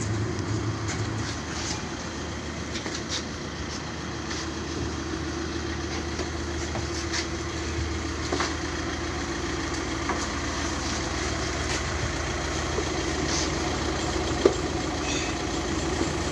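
Jet-wash pressure pump running with a steady hum while water sprays from the lance onto the van's panels. A single sharp click comes near the end.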